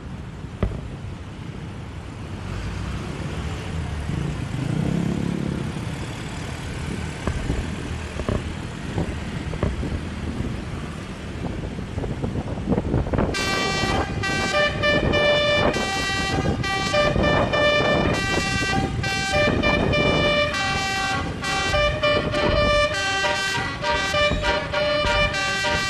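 A bus's multi-trumpet 'telolet' basuri horn playing a fast melody of rapidly changing notes, starting about halfway through, after a stretch of engine and road rumble.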